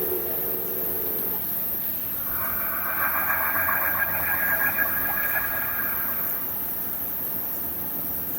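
Unidentified snore-like night sound, likened to the sky snoring and breathing. A drawn-out low tone fades out about a second in. About two seconds in, a higher, rapidly pulsing sound starts and lasts about four seconds.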